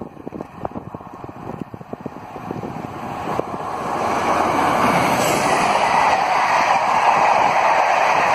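Class 47 diesel locomotive and its train of coaches approaching, then running past at speed. The sound builds from about three seconds in to a loud, steady rush of wheels on rail, after a start of wind buffeting the microphone.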